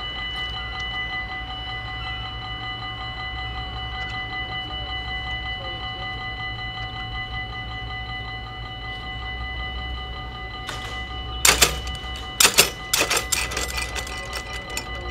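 Dutch level-crossing warning bell ringing steadily as the barriers come down, over a low rumble. From about eleven seconds in comes a run of loud clattering knocks.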